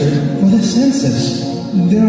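Background music: a melody in short, repeating arching phrases.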